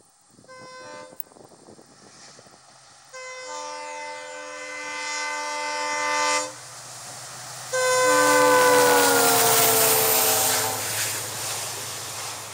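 WDG4D diesel locomotive's multi-tone horn as it approaches at speed: two short toots, then a long blast of about three seconds, then a second long blast that drops in pitch as the locomotive passes close by. Under the horn, the rumble of the engine and of the coaches rolling past grows and carries on after the horn stops.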